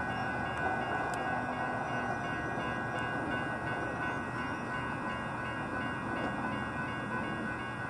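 Railroad grade-crossing warning bells ringing steadily as the gate arm comes down, the warning for an approaching train, over a steady low rumble.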